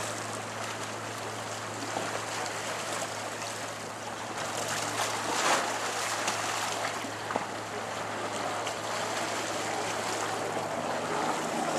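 Wind and choppy harbour water rushing past, with a steady low motor hum underneath and a couple of sharp knocks around the middle.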